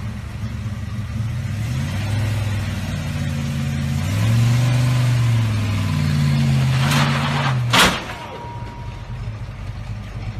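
Classic Ford Mustang fastback's engine revving up and down at low speed as it is driven up ramps into an enclosed car trailer, then a single loud bang just before eight seconds in, after which the engine note stops.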